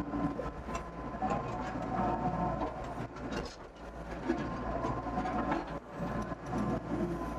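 Doosan DX55 mini excavator's diesel engine running under load, with wavering hydraulic whine. Scattered knocks and scrapes come from the bucket working hard soil.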